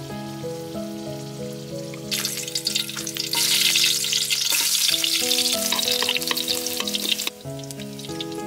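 Pork spare ribs sizzling in hot oil in a wok. The sizzle starts about two seconds in, grows louder, and cuts off suddenly about seven seconds in, over soft background music of held notes.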